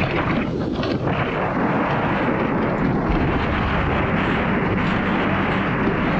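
Gale-force wind buffeting the microphone: a loud, steady rushing rumble.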